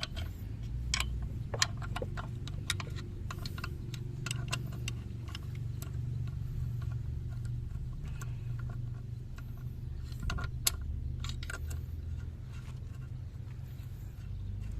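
Hand tools working bolts on an engine by hand: scattered metallic clicks and clinks, a few bunched together about ten seconds in, over a steady low hum.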